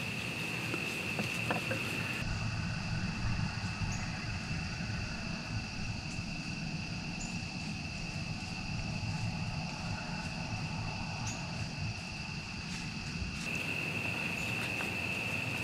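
Steady high-pitched drone of crickets, fainter for most of the middle, where a low rumble takes over.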